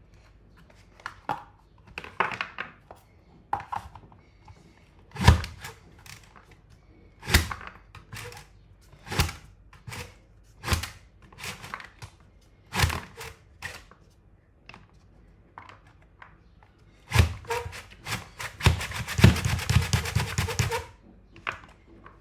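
Plastic Safe Slice mandoline slicer pushed through its strokes while dicing potato sticks, giving sharp thunks every couple of seconds, with a quick rattling run of clicks near the end.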